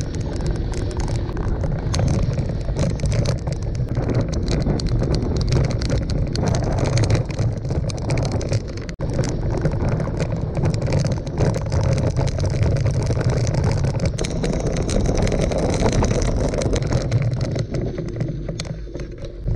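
Gravel bike ridden over a dirt and sand track: a steady rumble of wind on an action camera's microphone, with tyres crunching on gravel and many small rattles and clicks from the bike. There is a brief dropout about nine seconds in.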